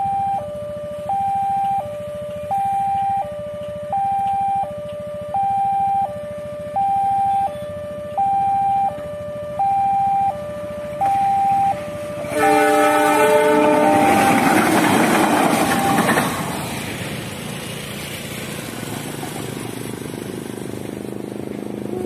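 Automatic level-crossing siren sounding a clean, smooth two-tone hi-lo wail, switching notes about every three-quarters of a second: the siren working normally. It stops about twelve seconds in, a GE CC 206 diesel locomotive running light sounds a short chord on its horn and goes past at its loudest, and then its engine rumble carries on more quietly.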